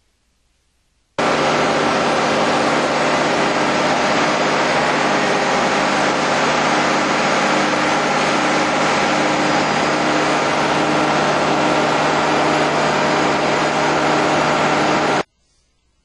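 Borehole drilling rig running: a loud, steady engine drone with a broad hiss over it. It starts abruptly about a second in and cuts off abruptly near the end.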